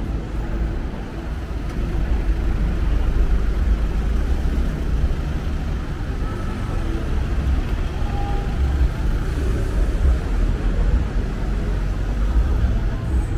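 City street ambience dominated by a steady low rumble of road traffic, with no single event standing out.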